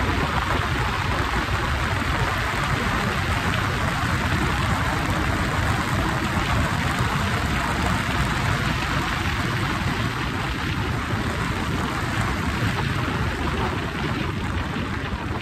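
Motorcycle cruising at highway speed: a steady rush of wind over the handlebar-mounted microphone, with road noise beneath.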